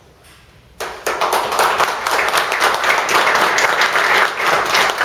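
An audience starts applauding about a second in: many hands clapping together, keeping up steadily.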